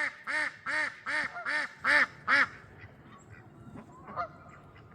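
A duck giving a quick, even run of about seven loud quacks, roughly two or three a second, which stop about two and a half seconds in.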